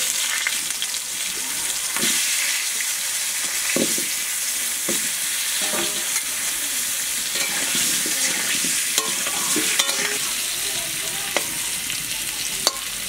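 Peeled potato chunks sizzling steadily as they fry in hot mustard oil with salt and turmeric in an aluminium kadai. A metal spatula scrapes and knocks against the pan now and then as the potatoes are turned.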